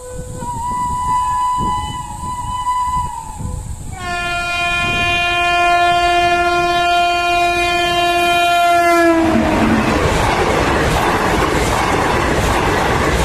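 WAP-5 electric locomotive's horn sounding: a lighter horn note for about three seconds, then a long loud blast from about four seconds in, held for about five seconds and falling in pitch at its end. The express then rushes past at speed with loud rumble and rattle of the coaches on the track.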